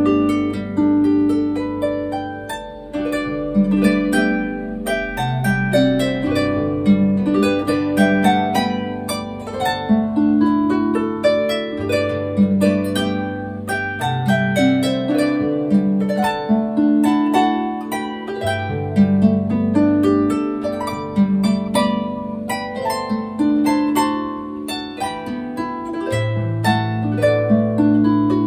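Background harp music: a continuous flow of plucked notes over lower ringing bass notes.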